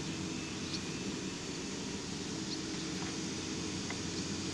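Steady low hum with a constant hiss, with a few faint ticks.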